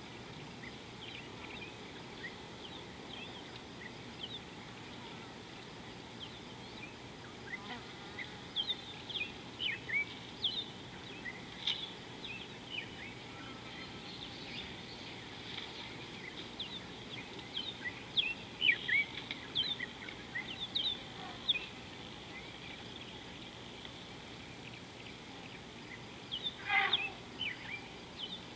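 Wild birds calling in the bush: many short, high chirps and whistles come and go over a steady background hiss, with a louder call sliding down in pitch near the end.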